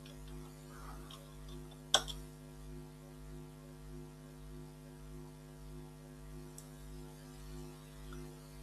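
Steady low electrical hum with a slow pulsing throb under it, and a single sharp click about two seconds in.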